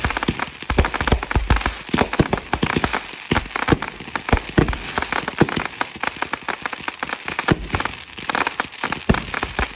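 Consumer fireworks going off in a dense barrage: rapid crackling pops throughout, with deeper booms mixed in.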